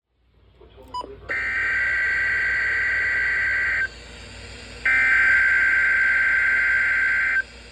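Emergency Alert System SAME header: two bursts of warbling digital data tones, each about two and a half seconds long with a gap of about a second between them, the coded header that opens an EAS alert. A short click comes about a second in.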